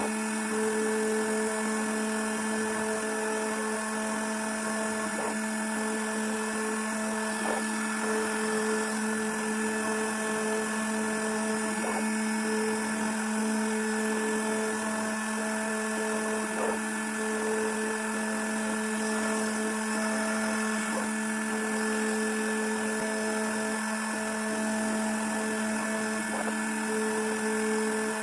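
Small CNC router spindle running steadily at high speed while machining a copper-clad circuit board, a constant whine with a few faint ticks every few seconds.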